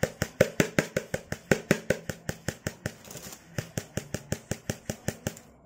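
A plastic basin of rice being knocked in a fast, even rhythm, about five or six knocks a second, stopping near the end. The knocking shakes the fine weevil dust down to one side so the rice can be separated from it.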